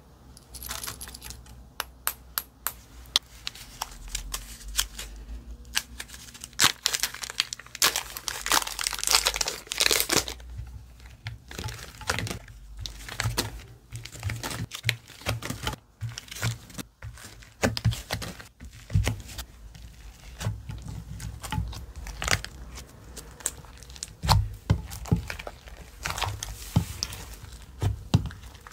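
Slime being squished and stretched by hand, giving a continuous crackle of short pops and clicks.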